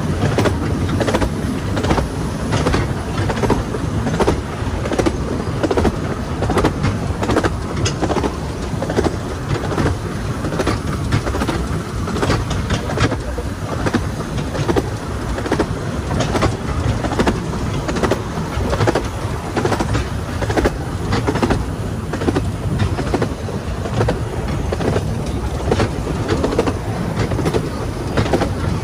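A 15-inch-gauge steam-hauled passenger train running along the track, heard from on board: a steady rumble with frequent sharp clicks and knocks, several a second.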